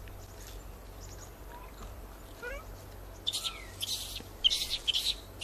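Newborn Japanese macaque crying: a short rising squeak about halfway through, then a run of shrill, high-pitched chirping cries over the last two seconds, the distress calls of an infant left without its mother.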